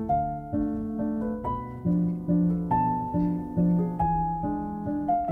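Calm background music: a gentle melody of plucked notes, each starting sharply and fading, about two notes a second.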